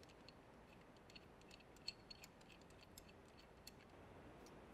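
Near silence, with faint scattered light clicks of small parts being handled while a valve controller module is seated onto a pneumatic actuator.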